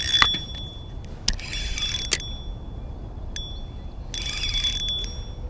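Spinning reel being cranked in three short bursts, its gears whirring with a thin high whine, with a few sharp clicks in between.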